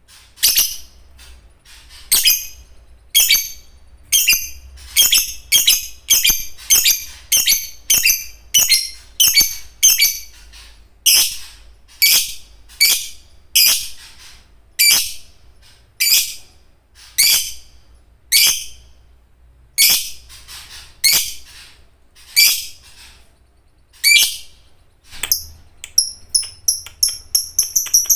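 Lovebird giving loud, shrill, squeaky calls, one to two a second. Near the end it breaks into a fast, continuous chatter, the long 'ngekek' song that keepers play to set other lovebirds calling.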